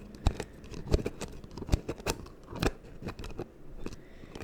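Irregular crisp taps and clicks close to the microphone, a dozen or so spaced unevenly, from hands handling and tapping beauty products.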